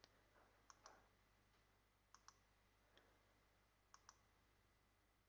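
Faint computer mouse clicks, mostly in close pairs: three pairs spread a second or more apart, with a couple of single clicks, over near-silent room tone.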